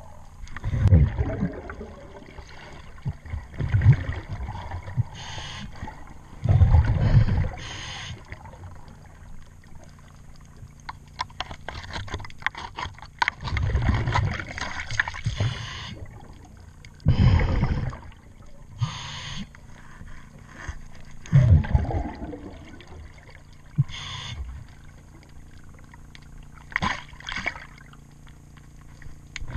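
Scuba diver breathing underwater through a regulator: a loud burst of bubbling exhaust every three to four seconds, with a fainter hiss of inhalation between them. About a third of the way through there is a quick run of light clicks.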